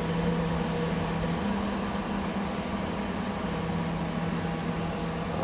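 Steady mechanical hum with a constant low tone that steps up slightly in pitch about a second and a half in, over an even hiss.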